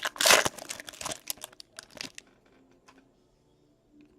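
Foil wrapper of a Topps Chrome baseball card pack being torn open and crinkled, loudest in the first second, then dying down to a few light handling ticks by about two seconds in.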